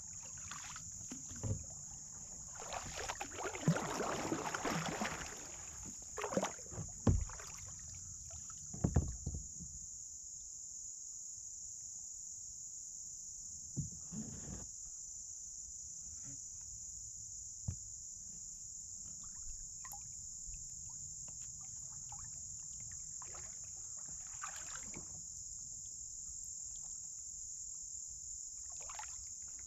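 Insects droning steadily at a high pitch, with kayak paddle strokes splashing water and knocking against the hull now and then, busiest between about three and ten seconds in.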